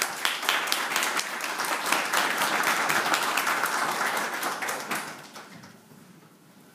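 Audience applauding to welcome a speaker who has just been introduced. The clapping fades out about five seconds in.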